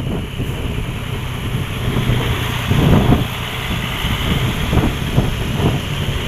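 A vehicle engine running steadily, with wind buffeting the microphone.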